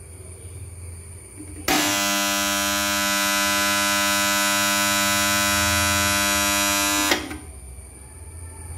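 Motor contactor of a submersible pump starter energised and buzzing loudly: a harsh, steady mains hum that starts suddenly about two seconds in and cuts off about five seconds later. This is the contactor's humming-noise fault.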